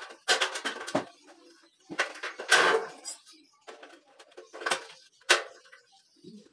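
Thin light-steel frame profiles knocking and scraping against each other as they are handled and fitted: a string of sharp metallic knocks, a longer rattling scrape about two and a half seconds in, and a sharp click a little after five seconds.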